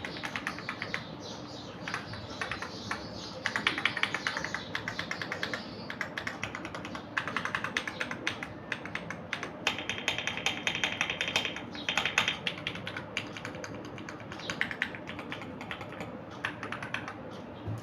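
Fast typing on a CIY Tester AK84 mechanical keyboard fitted with lubed Akko CS Jelly Purple tactile switches: dense runs of key clicks in bursts, with brief pauses between them.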